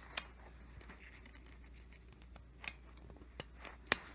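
Metal sling swivel clicking and tapping against a rifle bipod's mount as it is hooked onto the sling stud: scattered sharp clicks, the loudest near the end.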